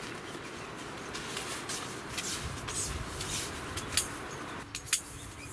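Rustling and light clicking as the aluminium pole sections of a Helinox Lite Cot and its nylon fabric are handled and fitted together, with a few sharper clicks about four and five seconds in.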